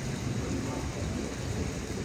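A steady rushing noise with an uneven low rumble underneath, with no distinct events in it.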